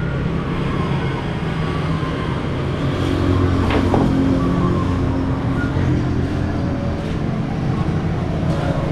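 Road traffic: vehicle engines running steadily, with a single sharp click about four seconds in.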